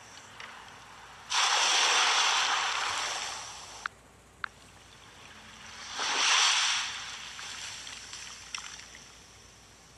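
Ocean-wave sound effect: two swells of rushing, surf-like noise, the first rising suddenly and fading over about two and a half seconds, the second shorter and softer. Two sharp clicks fall between them.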